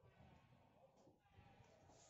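Near silence: faint background hum with a single soft click about a second in.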